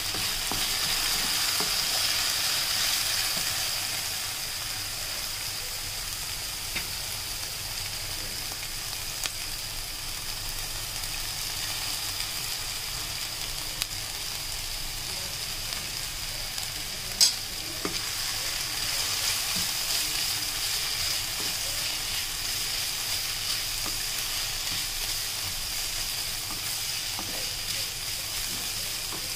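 Sliced green capsicum and shredded cabbage sizzling in hot oil in a non-stick pan, a wooden spatula stirring and scraping with small scattered clicks. One sharp knock a little past halfway.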